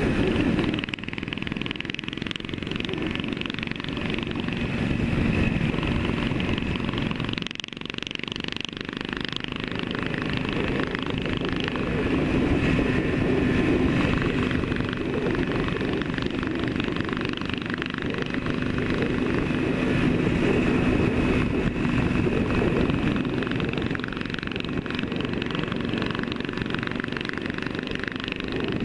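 Yamaha RD400's two-stroke parallel twin running steadily at road speed, heard from the rider's helmet with wind noise over it. The engine sound dips briefly about seven and a half seconds in, then picks up again.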